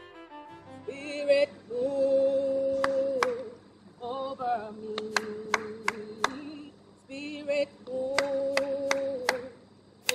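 A woman singing unaccompanied in three similar phrases of long held, wavering notes, with a few sharp hand claps over the held notes.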